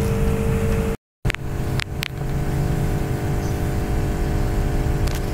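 Steady low mechanical hum with a few light clicks, cut off by a short silent gap about a second in.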